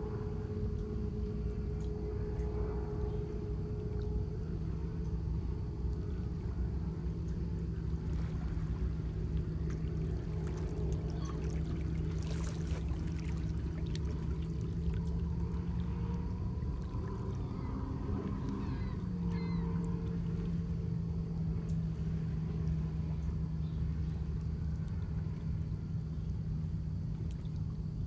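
Small lake waves lapping and trickling among shoreline rocks, over a steady low engine hum.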